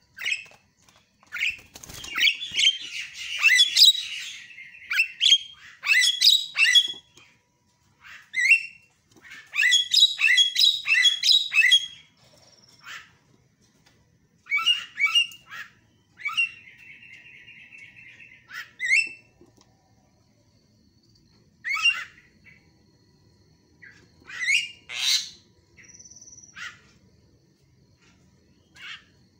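Javan myna calling in bursts of rapid, harsh chattering notes with short pauses between them. A little past halfway there is one held buzzy note.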